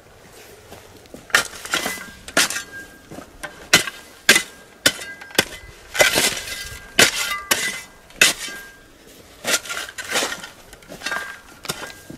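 Metal shovel blade digging and scraping into dry, stony soil, a series of sharp chinks and scrapes one or two a second, as earth is shovelled back into the planting hole around a maguey.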